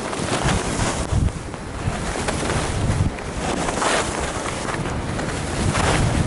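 Wind buffeting the microphone of a camera carried by a skier on the move, with the hiss and scrape of skis over packed snow swelling and easing every second or two.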